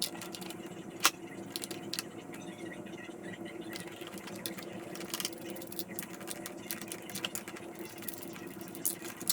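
Scattered clicks and light clatter of hands working on a plastic battery box and its terminals, with one sharper click about a second in, over a steady low hum.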